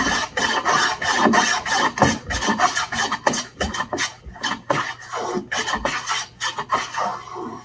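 Block plane fitted with a chamfer-kit fence shaving the corner of a pine board in quick back-and-forth strokes, each a short rasping cut, a little over two strokes a second.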